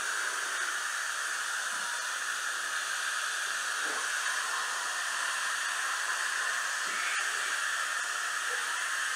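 Dental suction running with a steady, even airy hiss, broken only by a few faint clicks.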